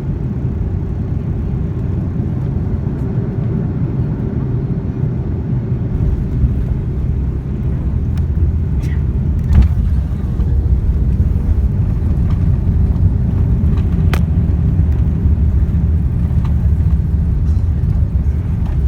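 Airliner cabin noise during landing: a steady low rumble of engines and airflow heard from inside the cabin, growing louder about six seconds in. A single sharp knock sounds about halfway through.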